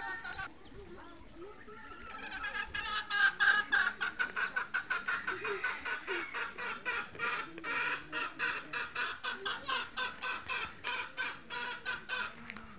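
Domestic chickens clucking: a fast, steady run of short clucks at about five a second, starting about two seconds in and going on until near the end.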